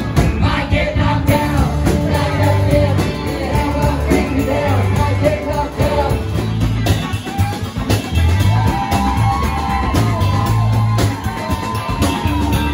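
Live rock band playing: drum kit keeping a steady beat under guitars and bass, with women singing the melody into microphones.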